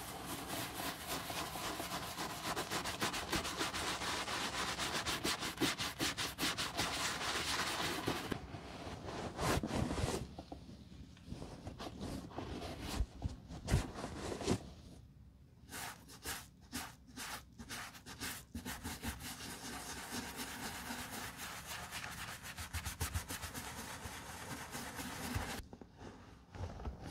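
A bristle brush scrubs the leather of a boot in rapid, dense strokes for the first eight seconds or so. After that, a terry cloth towel rubs and wipes the leather, first in slower separate strokes and then in steadier rubbing.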